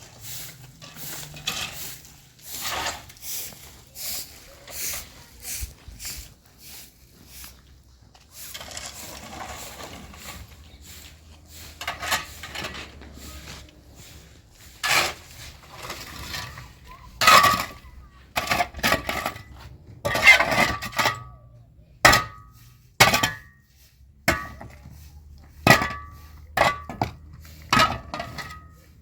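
Repeated sharp clinks and knocks of hard objects being handled, irregular throughout; from about two-thirds of the way in they grow louder and each rings briefly.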